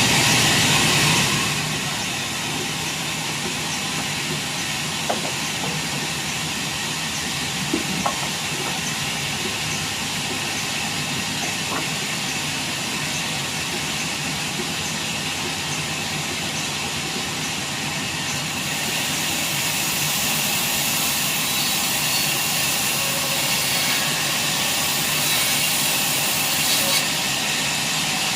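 Sawmill machinery running with a loud, steady rushing noise, with a few short knocks; the noise grows louder and brighter about two-thirds of the way through.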